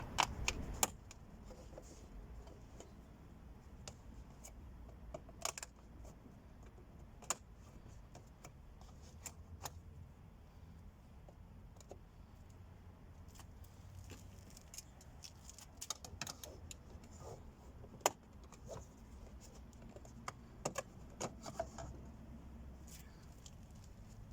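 Plastic car door-trim parts being handled and slid loose by hand: scattered light clicks and rattles over a low hum, busier in the last third.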